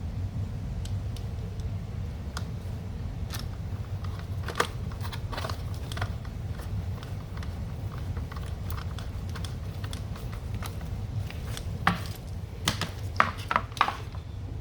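Scattered light clicks and taps of small metal and plastic parts handled during reassembly of a car's electric cooling fan motor, coming thicker and louder near the end, over a steady low hum.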